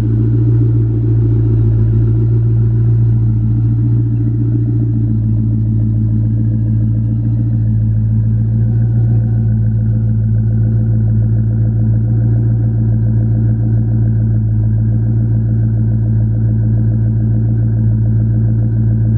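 Supercharged 4.6-litre DOHC V8 of a 2004 Ford SVT Cobra idling steadily, heard at its stainless-steel exhaust, with a low, even note that holds the same pitch throughout.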